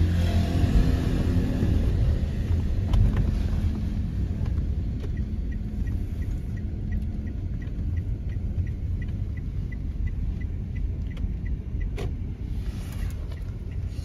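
Car running on the road, heard from inside: a steady low rumble of engine and road noise, a little louder over the first few seconds. A faint regular ticking, about two ticks a second, runs through the middle, and there is one sharp click near the end.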